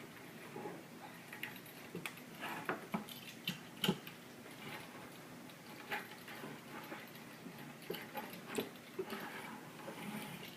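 Rubber spline and screen mesh being pressed into the groove of a window screen frame: irregular light clicks, taps and scrapes, with one sharper click about four seconds in.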